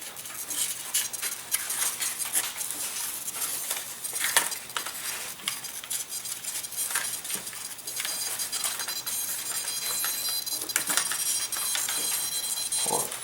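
Light clicks and taps from small parts being handled: the wires and components of a micro model airplane being fitted into place by hand.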